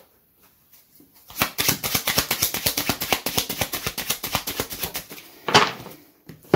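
A deck of cards being shuffled by hand: a rapid run of card flicks lasting about three and a half seconds, then a short swish near the end as a card is drawn out.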